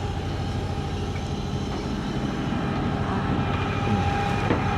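Sailboat's engine running steadily under way, a low rumble with a fast even pulse, a little louder near the end.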